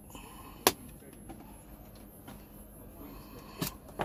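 A single sharp click a little under a second in, as the illuminated rocker power switch of a Chauvin Arnoux C.A 6165 appliance multitester is turned off. Faint handling noise follows, with another short click near the end.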